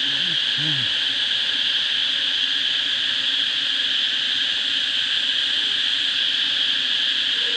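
Steady high-pitched insect chorus, with a faint low hum beneath.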